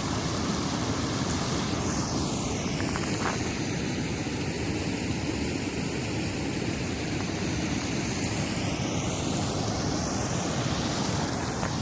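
Steady rushing of water pouring over a small artificial waterfall (weir) on the river, a constant deep wash with hiss on top.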